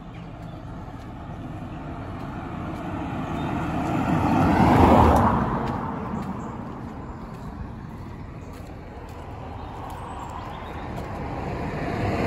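A car driving past on the road, building to its loudest about five seconds in and then fading away. A second car approaches near the end.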